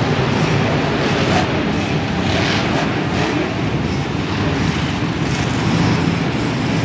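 Monster truck supercharged V8 engines running, a loud steady low rumble.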